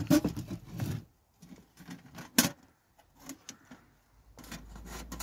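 Split firewood logs clattering and knocking as they are loaded into the firebox of a Pomoly titanium wood stove, with one sharp knock about two and a half seconds in. Near the end come softer metal rattles and clicks as the stove door is swung shut.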